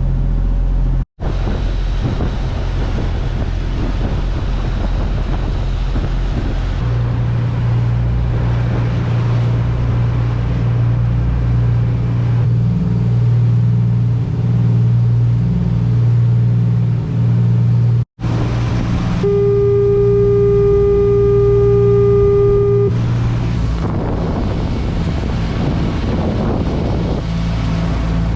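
Steady low engine drone, broken by two brief cuts, with a horn sounding steadily for about three and a half seconds a little past the middle.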